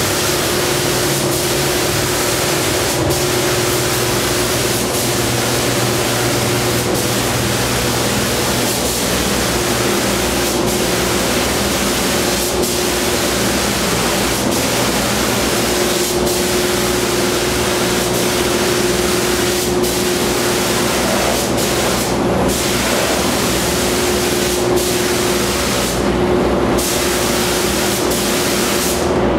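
Gravity-feed compressed-air paint spray gun hissing steadily as clear coat is sprayed, with short dips about every two seconds between passes and two longer breaks near the end where the spray stops. A steady hum runs underneath.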